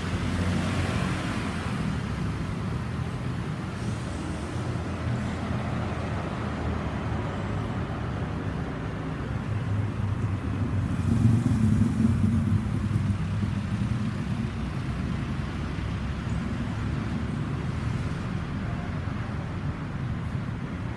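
A motor vehicle running with a steady low rumble, louder for a couple of seconds around the middle.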